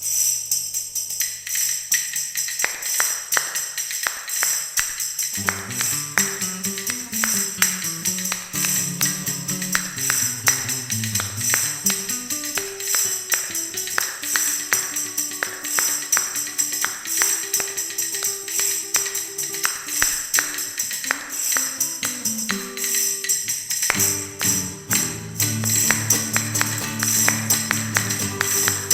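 Instrumental passage of a cueca played by a small brass and string ensemble. A tambourine jingles steadily in rhythm throughout, and low sustained melody and bass notes come in about five seconds in.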